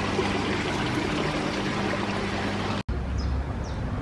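Running water splashing and trickling in aquarium tanks, over a steady low hum from the tanks' pumps. It cuts off about three seconds in to a quieter outdoor background.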